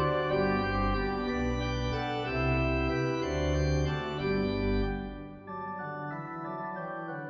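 Pipe organ music: sustained chords over a slowly moving bass line. About five seconds in, the bass drops out and the playing carries on more softly in the higher register.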